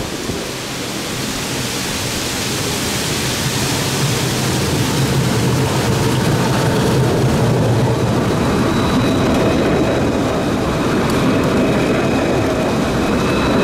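Alstom Citadis 403 low-floor tram approaching and running past close by: a steady rumble and hiss that grow as it nears. A thin high whine sets in about eight seconds in.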